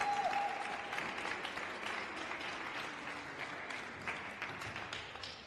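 Audience applauding, a dense patter of clapping that slowly thins and fades out near the end.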